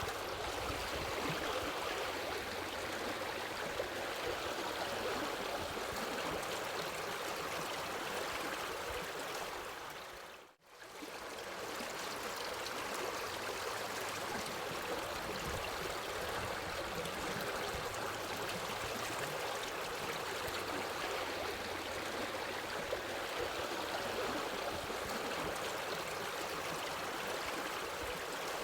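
Steady running water, an even rushing like a stream, that fades almost to silence for a moment about ten seconds in and then comes straight back.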